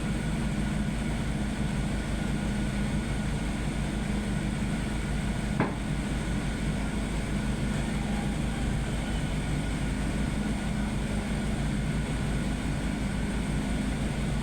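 Heavy equipment diesel engine running steadily with a low, even drone, with one sharp knock about five and a half seconds in.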